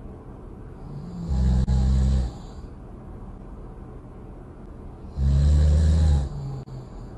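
Loud snoring: two low snores about four seconds apart, each lasting about a second.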